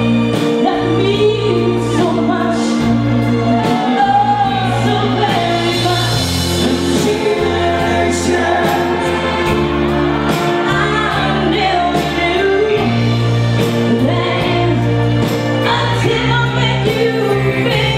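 Live band music: a woman singing lead into a handheld microphone over sustained bass notes, chords and drums with cymbals.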